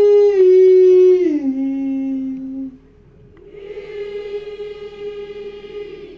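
One voice holding a long high sung note that steps down in pitch about a second in and ends a little later, then, after a short pause, a crowd of voices singing in answer, quieter.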